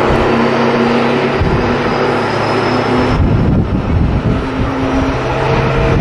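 Airbus A320neo airliner landing: steady jet engine whine over a low rumble. The high whine cuts off about three seconds in and gives way to a noisier rumble before the engine tones return.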